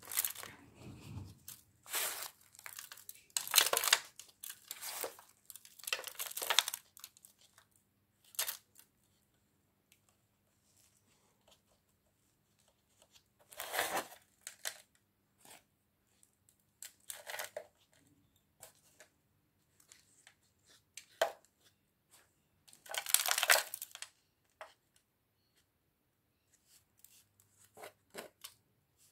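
Hands handling a thin plastic plant pot and pressing potting soil, with crinkling and rustling in irregular bursts of a second or two and quiet pauses between them.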